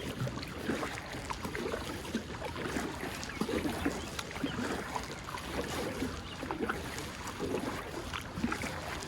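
Water splashing and gurgling around a kayak as it is paddled, in small irregular splashes over a steady wash.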